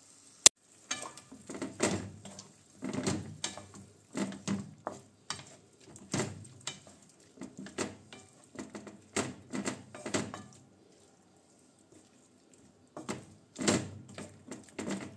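Wooden spatula stirring sausages and vegetables in a pan, scraping and knocking against the pan in a string of irregular strokes, with a pause about 11 seconds in. A single sharp click about half a second in.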